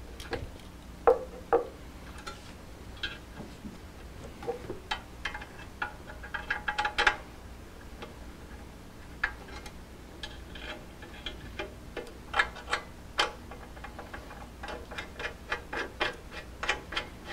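Scattered sharp metal clicks and taps from hand tools and parts as the table of a DeWalt 788 scroll saw is worked back onto its trunnion bolt. The clicks come in small clusters, with a quicker run of them near the end.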